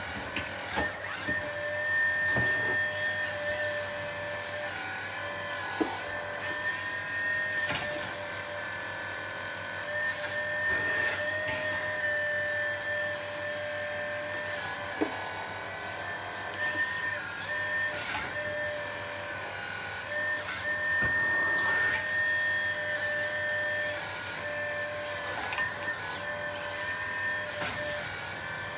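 Small electric motor and pump of a 1/12-scale RC excavator running with a steady whine that dips in pitch now and then as the boom and bucket move. Occasional clicks and knocks come from the machine.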